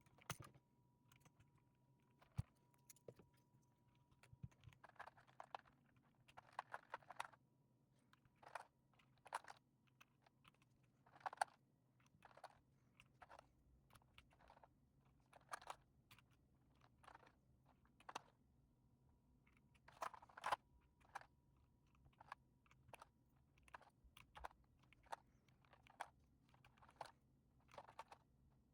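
Typing on an Akko M1 V5 mechanical keyboard fitted with EPOMAKER Bluebird switches: irregular keystroke clacks, some single and some in quick runs, with short pauses between.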